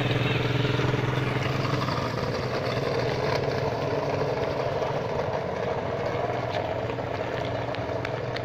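Small engine of a children's mini quad bike running. Its steady note is loud for about the first two seconds as it passes close, then softens to a fainter hum as the quad rides off.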